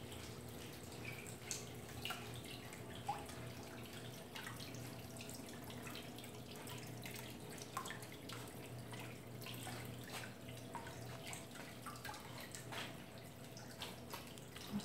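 Small drilled-stone bubbler fountain in a potted water basin: water trickling and dripping in small irregular splashes over a steady low hum.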